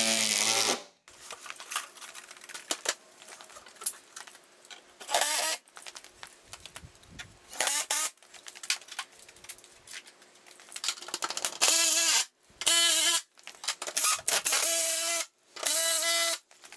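Bosch cordless drill driving screws into steel garage door hinges, in about six short runs of under a second each with a steady motor whine. Light clicks and handling knocks fill the gaps between runs.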